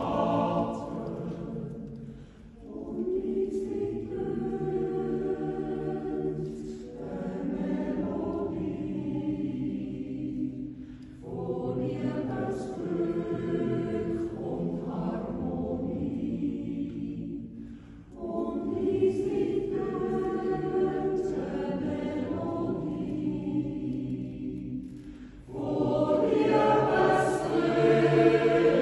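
Swiss yodel-club choir of men's and women's voices singing a cappella in long held chords, with brief breaks between the phrases.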